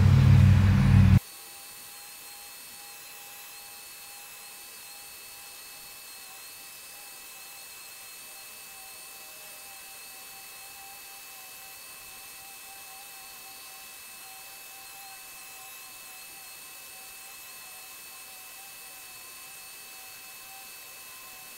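Dremel 4300 rotary tool on a flex shaft running with a steady, slightly wavering high whine as a burr carves wood. A louder, deeper noise cuts off abruptly about a second in.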